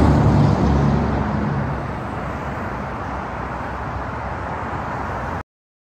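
Steady traffic noise from a busy multi-lane expressway. A semi-truck passing underneath is loudest in the first two seconds, as a deep rumble with an engine drone. The sound cuts off abruptly near the end.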